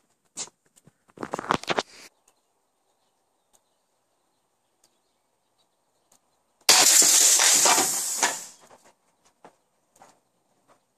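A compressed-air duster can hit by a BB bursts with a sudden loud blast, followed by a hiss of escaping gas that lasts about a second and a half and then fades out.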